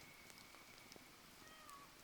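Faint wood campfire burning: sparse tiny crackles and pops, with a thin faint whistle early on and a short wavering one near the end.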